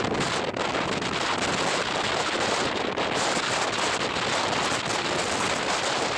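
Wind buffeting the microphone, a loud, dense crackling noise.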